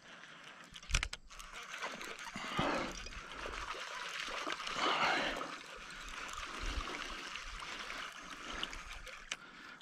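A hooked largemouth bass of about a pound being reeled in across the pond surface, splashing and churning the water as it comes. There is a sharp click about a second in, and the splashing swells twice.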